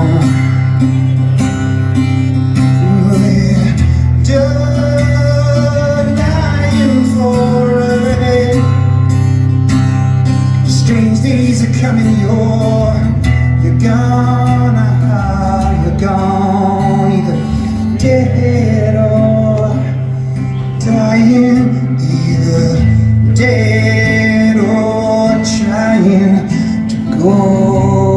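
Live rock band playing an instrumental passage: heavy bass and drums under guitar and melodic lines.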